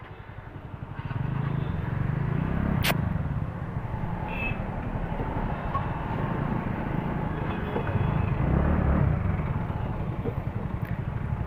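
Road and traffic noise heard from a moving scooter, with wind rumbling on the microphone. It rises about a second in, and a single sharp click comes near three seconds.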